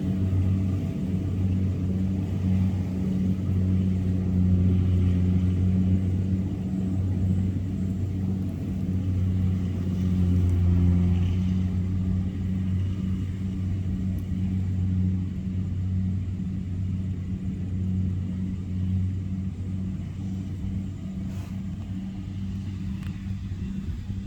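Kubota combine harvester's diesel engine running steadily, a low drone that gets a little quieter near the end.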